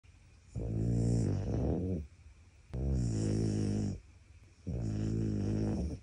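French bulldog snoring in its sleep: three drawn-out snores of about a second and a half each, with short quiet gaps between them.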